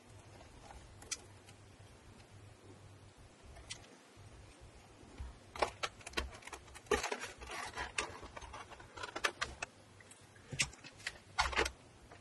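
Hands handling wires and a plastic cover panel on a 3D printer's electronics bay. A few scattered clicks, then about halfway through a busy run of clicks, taps and rustling as the panel is fitted into place.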